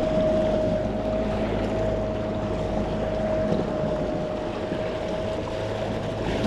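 NewPort Vessels NK300 3 hp electric kayak outboard running steadily under way, a constant whine over the rush of water along the kayak's hull.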